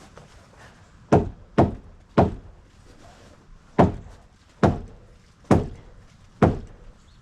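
Hammer striking deck lumber: seven heavy blows, unevenly spaced, half a second to a second and a half apart.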